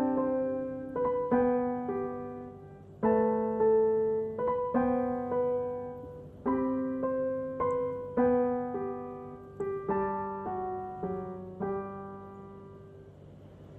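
Background piano music: slow, gentle chords and single notes struck about once a second, each ringing and decaying, fading out near the end.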